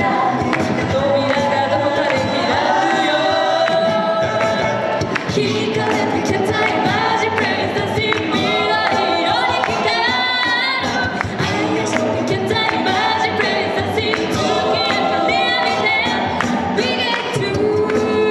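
Six-voice mixed a cappella group singing into microphones through a PA, several voice parts in harmony, with a steady percussive beat from vocal percussion.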